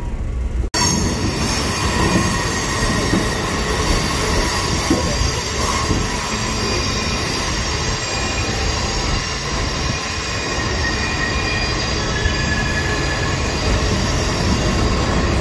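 Passenger train running on the rails, heard from an open-sided car: a steady rumble of wheels and track with high wheel squeal held over it.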